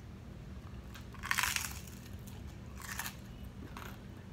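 Crunchy bites into the crispy crust of homemade fried chicken. One loud crunch comes about a second in, and shorter, softer crunches follow about three seconds in.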